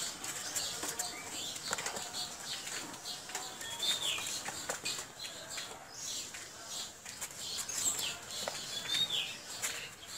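Small birds chirping and twittering throughout, with a couple of clear falling calls, over a few crisp knife cuts through pointed gourd.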